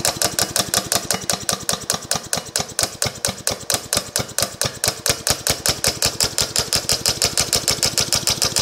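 A chainsaw's two-stroke engine converted to run on compressed air at about 40 psi, chuffing in even puffs of exhaust air as the solenoid valve admits air on each stroke. It runs slowly at first, about five puffs a second, and picks up speed in the second half.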